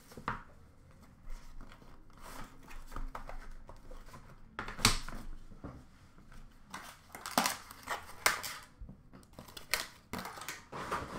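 Cardboard trading-card box being opened and handled by hand: rustling, crinkling and scraping of cardboard and wrappers, with several sharp knocks scattered through.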